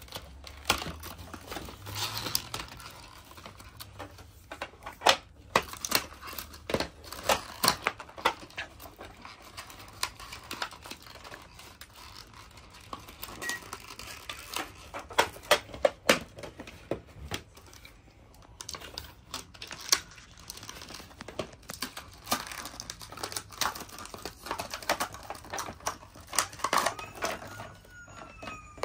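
Cardboard and clear plastic toy packaging being cut open and handled: irregular crinkling and crackling with many sharp clicks and snaps, as toy figures are pulled out of their plastic shell.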